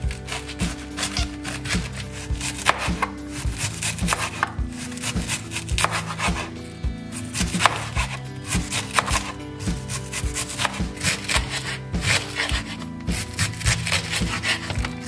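Kitchen knife slicing through a head of white cabbage onto a wooden cutting board, a quick continuous run of crisp cutting strokes as the cabbage is shredded finely. Background music plays underneath.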